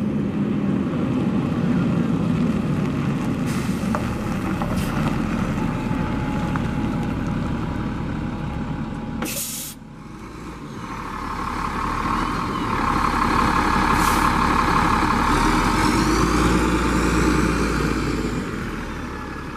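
Diesel transit bus engine running as the bus comes up close, with a short sharp air-brake hiss about halfway through. The engine then pulls hard past and away, louder, with a rising whine over a deep rumble that eases off near the end.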